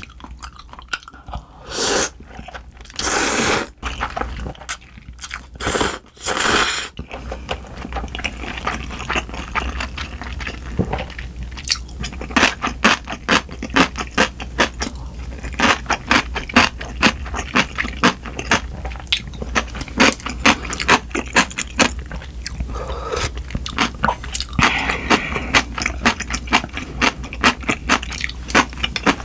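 Close-miked eating sounds: several long slurps of cold buckwheat noodles in the first seven seconds, then steady crunchy chewing of a crisp side dish, with many quick crunches.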